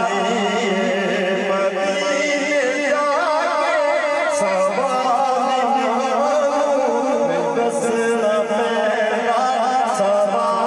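A man sings a naat, a devotional chant, through a microphone and PA. The melody wavers and is heavily ornamented, with steady sustained notes beneath it.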